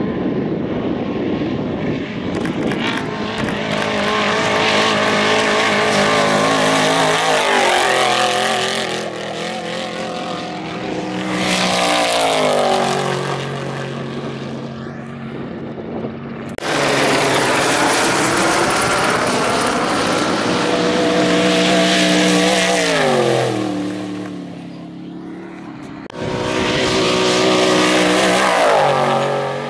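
Off-road trophy trucks racing past one after another at high revs, each engine swelling and then dropping in pitch as it goes by. There are at least four passes, with short lulls between them, and a last truck rushes past near the end.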